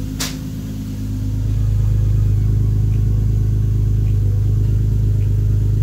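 Toyota Soarer's single-turbo 1.5JZ straight-six idling steadily at the twin tailpipes, sounding smooth on one of its first runs after the turbo conversion. A single sharp click sounds about a quarter second in.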